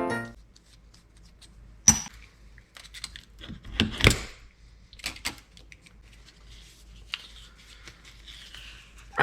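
Scattered clicks, taps and short rattles of small metal parts and hand tools being handled while an RV power awning motor is taken apart, with a sharp click about two seconds in and a cluster of knocks around four seconds.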